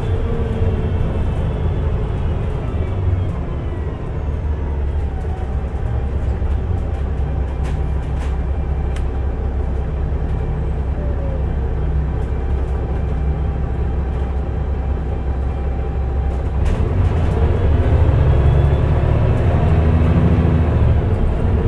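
Mercedes-Benz O405NH bus with a Voith automatic gearbox. Its engine and gearbox whine fall in pitch as it slows, then the engine runs steadily at a low pitch for about twelve seconds with a few sharp clicks. Near the end the engine and whine rise again as it accelerates.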